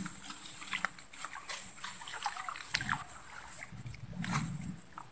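Irregular rustling and crackling of tall grass being pushed aside while a stick fishing rod is handled at a pond's edge, with dull thumps about three and four seconds in.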